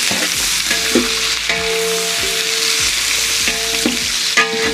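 Sliced onions sizzling in hot oil in a large metal pot while a metal ladle stirs them, knocking against the pot a few times and scraping it with a ringing note.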